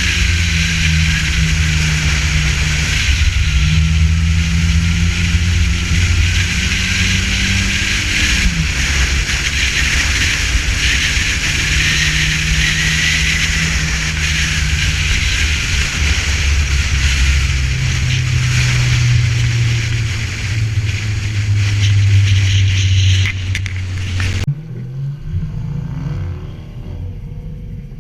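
Ford Festiva engine running hard through a trackcross run, its pitch stepping up and down over a steady hiss. About 24 seconds in the sound drops sharply and the hiss cuts off.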